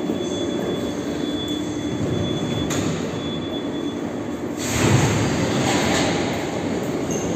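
81-717-family metro train running between stations, heard from inside the car: a steady rumble of wheels on rail with a faint high squeal. About five seconds in it swells into a louder rush of noise.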